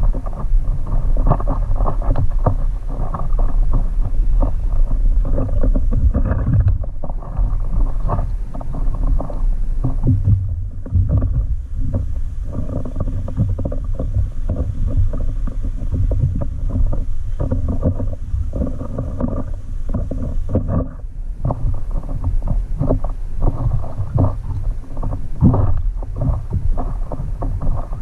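Water sloshing and slapping against a stand-up paddleboard on a light chop, over a constant low rumble and irregular buffeting on the microphone.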